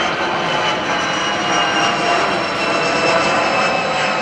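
Steady engine drone of a four-engine military transport aircraft flying high overhead.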